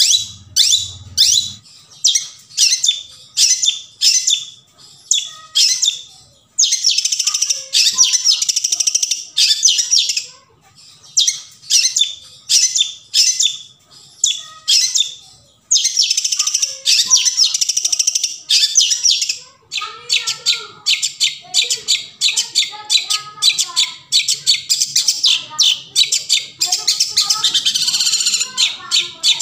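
Long-tailed shrike (cendet) calling: runs of sharp, high notes about two a second, alternating with bursts of dense, fast chattering song.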